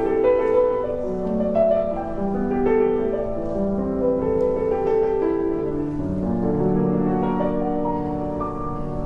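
Background instrumental music: a slow piano melody of held notes.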